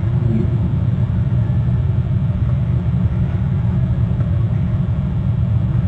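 A loud, steady low rumble, with faint wavering higher sounds over it.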